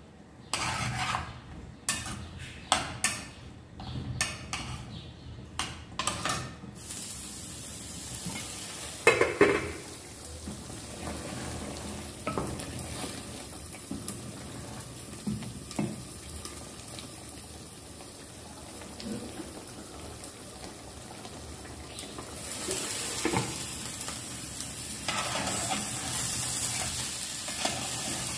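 A metal spoon clattering and scraping in a cooking pan for the first several seconds, then hot oil sizzling, which starts suddenly about seven seconds in and carries on with occasional stirring knocks. The sizzle grows louder about 22 seconds in.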